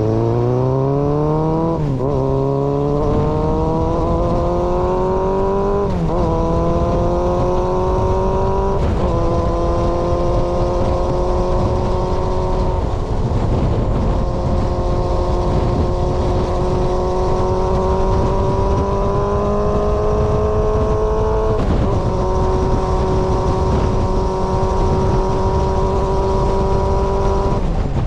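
Yamaha XJR400 inline-four with a straight-pipe exhaust accelerating through the gears: the revs climb and drop back with upshifts about 2, 6 and 9 seconds in. It then cruises at nearly steady revs, with another shift about 21 seconds in, over steady wind noise.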